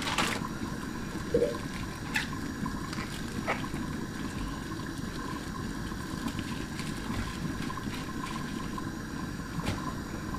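Water sloshing and dripping in a pan as lumps of dried bitter leaf are dropped in and pressed under by hand, over a steady hiss.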